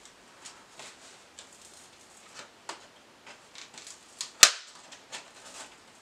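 A blade cutting through packing tape along the seam of a cardboard box, with scattered light scratches and clicks and one much louder sharp click about four and a half seconds in.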